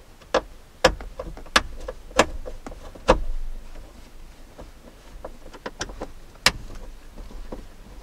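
Irregular sharp clicks and taps of a screwdriver and small screws being worked out of a plastic dashboard control panel, most of them in the first few seconds and one more strong click later on.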